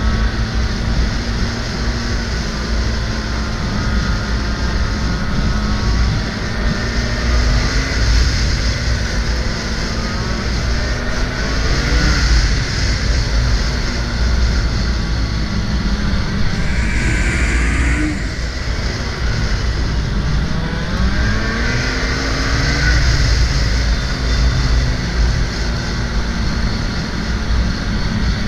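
Snowmobile engine running under way, its pitch rising and falling several times as the throttle changes, over a steady rush of noise.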